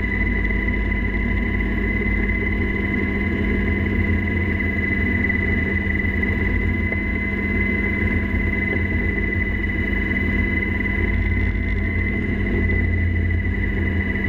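Cabin noise of a UH-60 Black Hawk helicopter in flight, heard from inside the cockpit: a steady, loud drone of its engines and rotor system with a high, constant whine over a low rumble.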